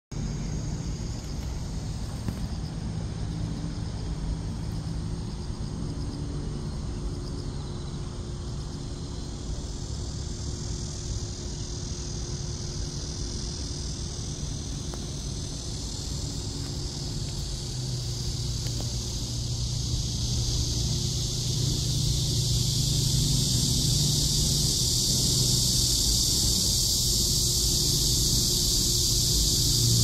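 Insects buzzing and chirring among grass and shrubs: a low steady hum with a high steady shrill above it. Both grow louder over the last ten seconds or so.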